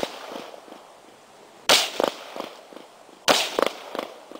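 AK-47 rifle shots: two sharp reports about a second and a half apart, each followed by a few quieter cracks.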